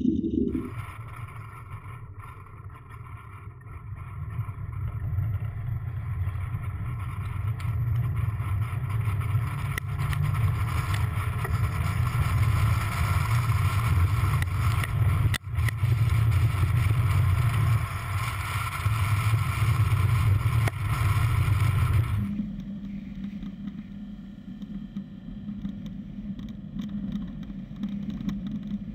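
Subaru on the move, heard from a camera on its hood: steady engine and road noise. About twenty-two seconds in it changes abruptly to a quieter, steadier hum.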